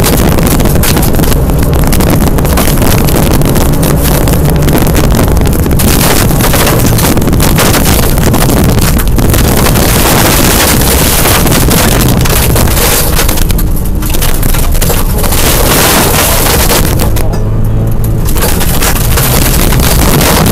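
Rally car engine running hard on a gravel stage, heard from inside the car, with tyres and stones on the gravel and wind noise. The sound is loud and eases briefly twice in the second half as the car comes off the throttle.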